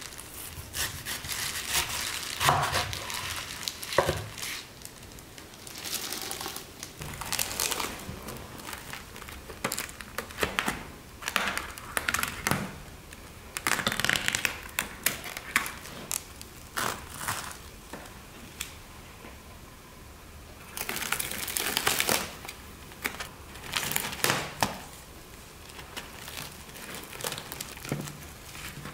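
Plastic cling film crinkling and tearing in irregular bursts as it is cut with scissors and pulled off takeout food bowls. A few sharp knocks of a knife on a wooden cutting board come in the first few seconds.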